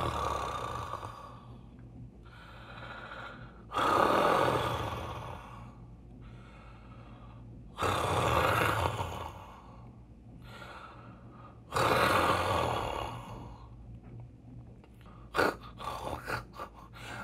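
A person's slow, heavy breathing, drawing in and letting out about one breath every four seconds, like someone asleep. A few short sharp clicks come near the end.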